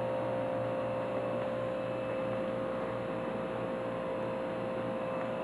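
A steady electrical-sounding hum, one even tone with a few fainter ones, over a constant low hiss.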